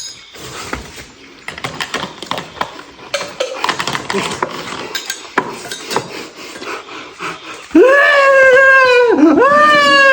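Light clatter of dishes and utensils. About eight seconds in, it gives way to a loud, long crying wail whose pitch dips sharply twice.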